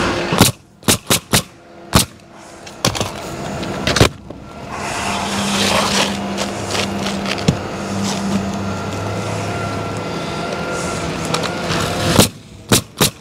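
Pneumatic coil roofing nailer shooting nails through asphalt architectural shingles: a quick string of sharp shots in the first few seconds, then three more near the end. In the middle there is a steady low drone.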